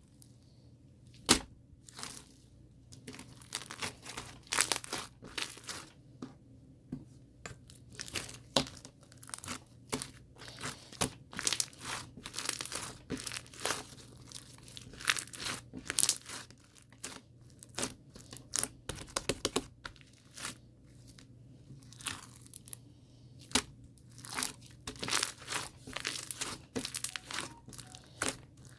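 Irregular crinkling and rustling, a steady stream of short crackles with a few louder snaps, as of material being handled.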